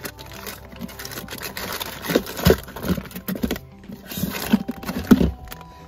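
Jars and plastic containers knocking and clattering as a hand rummages through a fridge, with the loudest knocks about midway and near the end, over background music.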